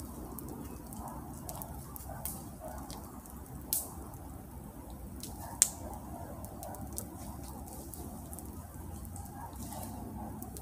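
A log being carried and set onto a frame of poles: shuffling steps on wood chips and handling noise over a steady low background, with scattered sharp clicks and snaps, the loudest a little over five seconds in.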